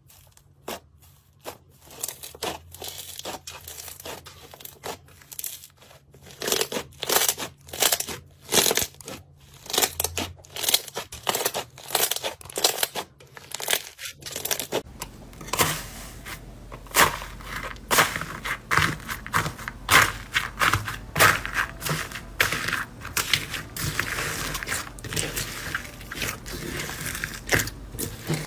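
Slime being squeezed and poked, giving a rapid run of crackles and pops that thickens into steady crunching about halfway through.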